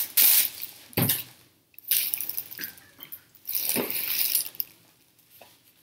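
Cardboard cereal box being torn open at its sealed flaps, with the crinkling and rustling of the plastic inner bag as it is pulled out, in several bursts that die down near the end.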